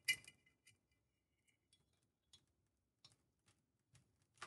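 Near silence with a brief glass clink right at the start and a few faint light ticks: a thin wire tapping the neck of a glass demijohn as a cloth tied to it is worked inside the bottle to wipe the glass.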